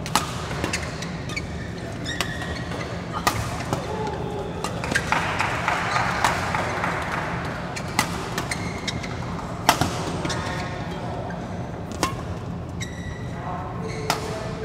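Badminton rally: sharp cracks of rackets striking the shuttlecock every second or two, over a steady low hum, with crowd noise swelling in the middle.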